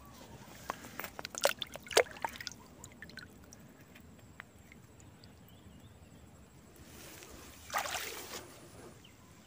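A hand splashing in shallow water as it scoops apple snails off the bottom, with a cluster of splashes and sharp knocks in the first couple of seconds, then faint trickling water. A brief rustling swish comes near the end.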